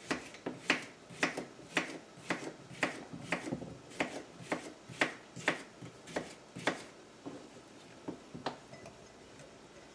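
Glass jar packed with sliced cucumbers being shaken, the slices knocking about inside so they settle. The knocks come about two a second, then thin out and stop.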